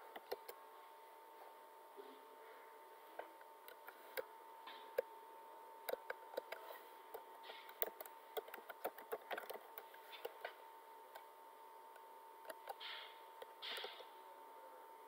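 Computer keyboard typing: irregular key clicks, thickest through the middle, over a faint steady hum.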